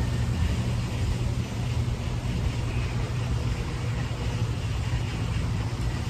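Steady low outdoor rumble and hum, with a faint even hiss over it and no distinct events.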